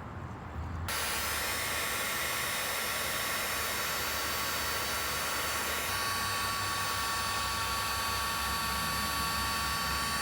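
Electric heat gun blowing steadily, a hiss with a fan whine, switched on about a second in, as used to shrink heat-shrink tubing over a soldered wire splice.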